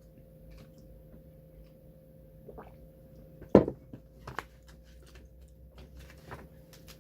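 Snack packaging being handled on a table: scattered faint rustles and taps, with one sharp knock about three and a half seconds in and a couple of smaller knocks a second later.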